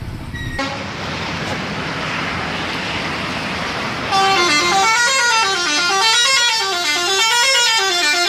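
A bus's telolet horn, a set of air horns playing a fast repeating tune of notes stepping up and down, comes in about four seconds in. Before it there is a loud steady rushing noise.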